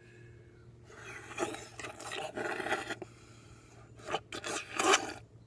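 A man lapping and slurping water with his tongue from a stainless steel bowl, in irregular wet bursts starting about a second in.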